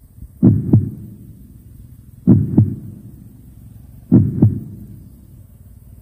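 Heartbeat sound effect: three loud, low double thumps (lub-dub), one about every two seconds.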